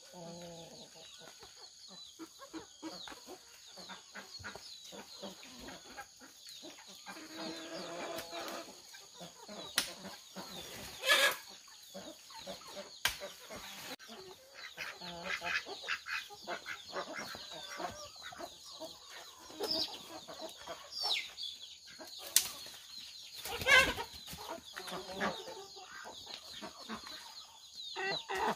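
Chickens clucking on and off, with two brief loud bursts of noise, one near the middle and one later, over a steady high hiss.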